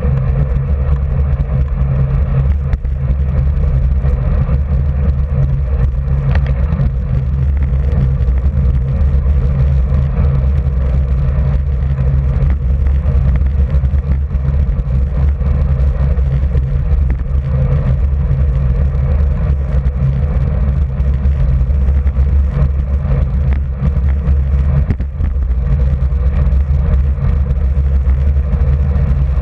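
Steady wind rumble on the microphone of a bicycle-mounted camera, mixed with tyre noise on rough country asphalt, at a riding speed of about 32 to 39 km/h.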